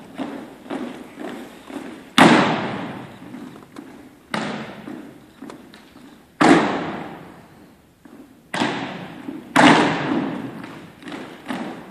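A squad of drill cadets marching in step on a gym's hardwood floor, about two footfalls a second, then five loud stamps of feet, each ringing out in the hall's long echo, as the squad halts and stands in formation; the marching steps resume near the end.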